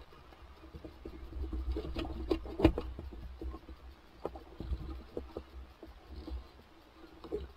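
Scattered knocks and clicks of fishing tackle being handled in an inflatable boat, the loudest a sharp knock about two and a half seconds in, over a low rumble and a faint steady hum.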